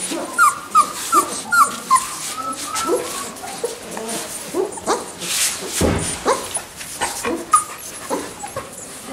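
Three-week-old puppies whimpering and squeaking: a quick run of short high squeaks in the first two seconds, then scattered short whines and yelps. A brief noisy burst comes a little past the middle.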